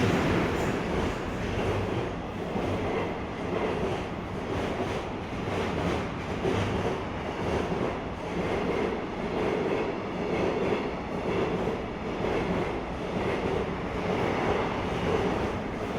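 Running sound inside a JR East 719 series electric multiple unit's motor car, KuMoHa 719-1, as it gets under way, growing louder in the first second. A pulsing noise comes back about every three quarters of a second, which the uploader wonders may be the car's unusual noise.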